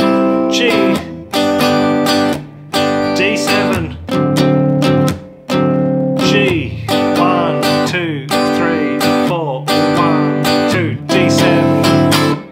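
Guitar strumming a slow chord progression of shell chords, one chord struck about every second and left to ring. The last chord rings out and fades near the end.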